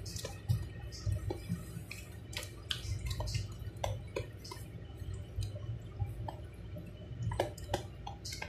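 Thick mayonnaise-based burger sauce being stirred vigorously with a spoon in a plastic bucket: wet squelching with irregular clicks and knocks as the spoon works through the sauce and hits the bucket.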